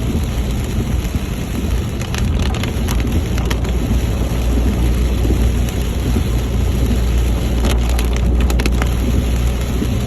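Heavy rain beating on a moving car over a steady low road rumble, with clusters of sharp crackling ticks about two seconds in and again near eight seconds.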